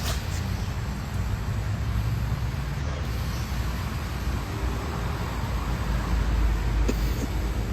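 Steady low rumble of a running vehicle, with a faint even hiss above it.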